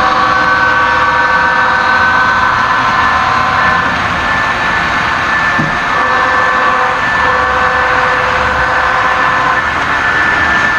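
Model freight train of covered hopper cars rolling past close by: a steady noise of wheels running on the rails, with high whining tones that fade out midway for a couple of seconds and then return.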